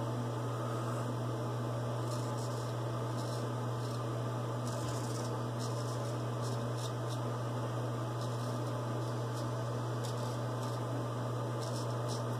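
Steady low electrical hum, with faint scratchy strokes of a Gold Dollar 66 straight razor cutting lathered stubble, coming a few short strokes at a time.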